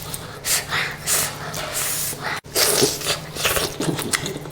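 A person eating close to the microphone: irregular wet chewing, smacking and slurping mouth sounds, with a few short throaty sounds.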